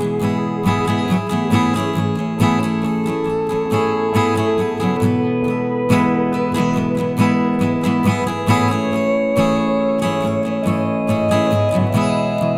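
Background music led by strummed acoustic guitar at a steady beat.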